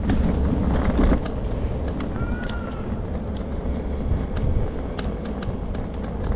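Outdoor city street ambience: a steady low rumble of road traffic, with a few short sharp clicks and a brief high gliding sound about halfway through.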